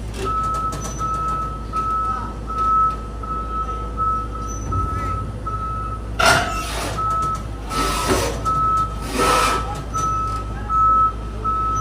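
Travel alarm of a LiuGong excavator beeping steadily about twice a second over its running diesel engine as it is moved onto a lowboy trailer. Three short bursts of hissing come through about halfway through and near the end.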